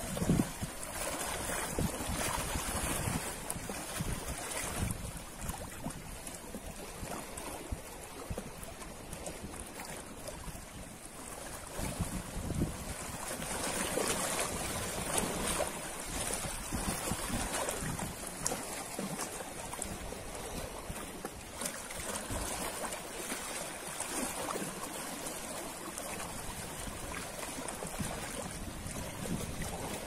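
Ocean surf washing onto the shore with wind, a rushing noise that swells and ebbs every few seconds.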